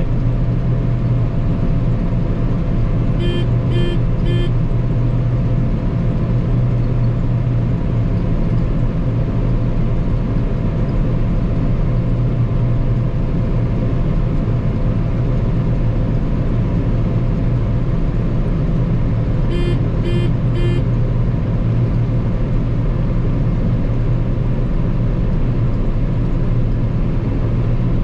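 John Deere 9560 STS combine running steadily, heard inside its cab with a constant low drone while it unloads barley through the auger. Two sets of three short electronic beeps sound, one about three seconds in and another about twenty seconds in.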